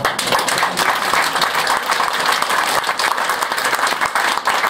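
Audience applauding: dense clapping from many hands that starts abruptly and keeps up steadily.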